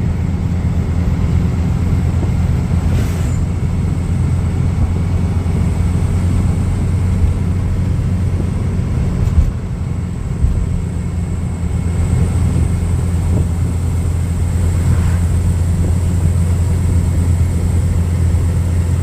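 Engine of a classic 1300 car running steadily, with a brief drop in level about halfway through.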